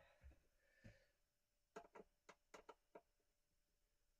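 Near silence with a few faint clicks and taps from hands handling small speaker parts and tools on a workbench, coming in a quick run in the middle.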